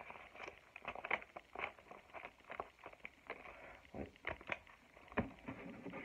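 Scissors cutting through a cardboard-backed paper mock-up, with irregular snips, crunches and crackles as the cardboard and paper are handled and forced through the blades.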